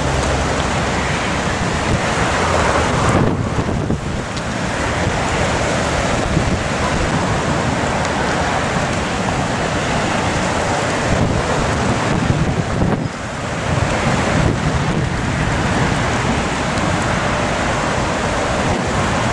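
Strong gusting storm wind ahead of a desert monsoon thunderstorm, blowing across the microphone as a loud, steady rush that eases briefly about four and thirteen seconds in.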